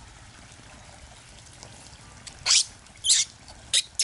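A person kissing a baby monkey: four short, sharp kissing smacks in the second half, the last two close together.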